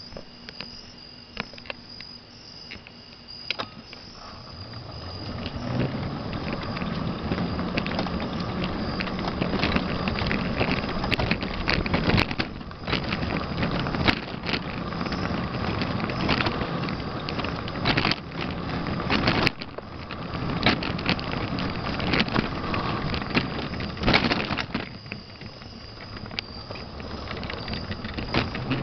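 Crickets chirp steadily at first. After a few seconds a loud, rushing noise builds, full of irregular clicks and rattles, as the camera moves fast along a paved path: wind on the microphone and handling noise.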